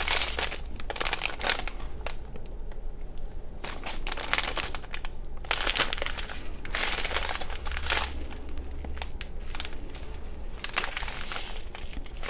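Small plastic bags of diamond-painting drills crinkling as they are handled and sorted, in several irregular bouts.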